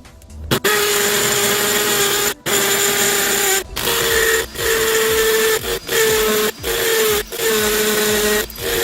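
DeWalt cordless drill motor running at full speed in a series of runs of one to two seconds, stopping briefly between trigger pulls; the whine steps up slightly in pitch about four seconds in.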